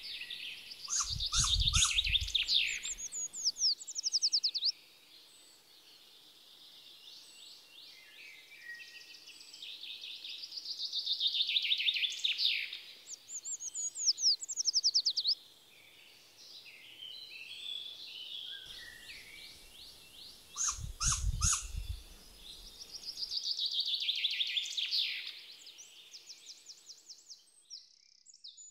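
Small forest songbirds singing: a song of quick high notes falling in pitch, repeated about every ten seconds, with other short calls in between. A low rumble comes twice, near the start and about two-thirds through.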